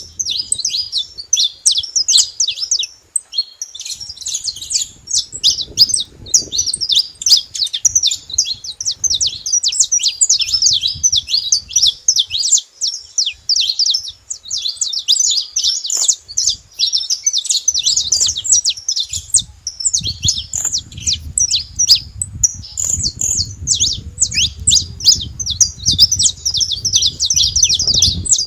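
Saffron finch singing, a dense run of rapid, high chirped notes with hardly a pause. A low rumble sits underneath, stronger in the second half.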